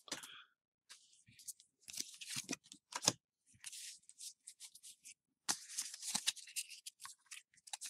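Pokémon trading cards being handled and slid against one another as a fresh pack is sorted through: a series of faint, short rustling and flicking sounds in two bursts with quiet gaps between.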